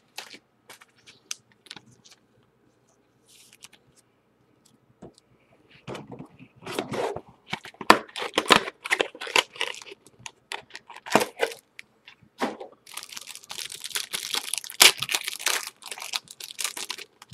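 A few light clicks of trading cards being handled, then a foil trading-card pack wrapper being torn open and crinkled. The crackling comes in bursts and grows dense over the last few seconds.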